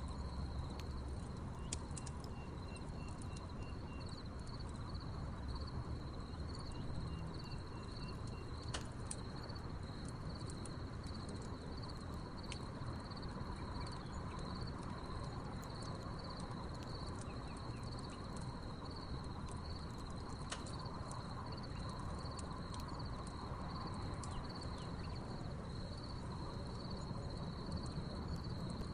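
Crickets chirping in a steady, pulsing high trill, with the scattered sharp pops and crackles of a burning wood fire, over a low background rumble.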